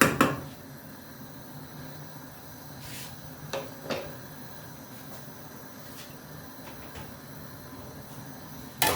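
A pot lid clanks down onto a cooking pot at the start. Two light knocks follow a few seconds later, and a burst of kitchen clatter of pots and utensils comes near the end, over a steady low hum.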